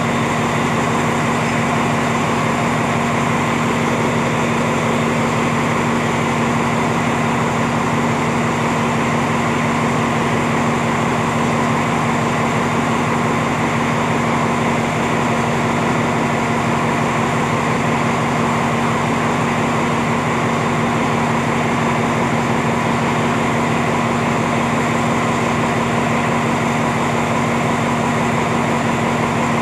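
Diesel engine of a stationary passenger train running at idle: a steady, even hum at one constant pitch.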